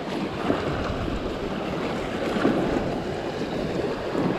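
Shallow saltwater sloshing and splashing, with wind on the microphone.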